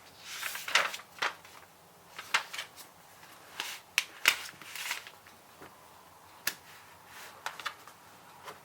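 Scattered sharp clicks and short rustles from handling things at a desk: a rustle in the first second, then single clicks a second or so apart, too sparse for steady typing.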